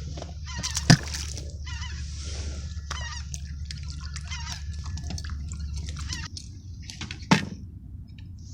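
Birds calling, with two sharp knocks, one about a second in and one near the end, over a steady low hum that stops about six seconds in.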